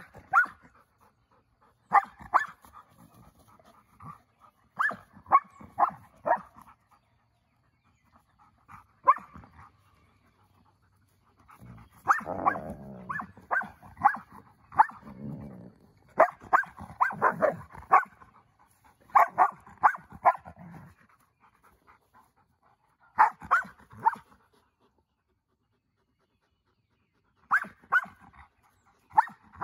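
A husky and wolf-dog pups play-fighting, making bouts of short barks and growling play noises, with quiet pauses of a few seconds between bouts.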